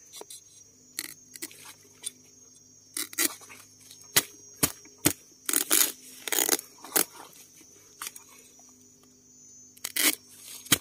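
Wild bamboo shoots being cut and broken off: a series of irregular sharp cracks and snaps, some louder than others, with short gaps between them.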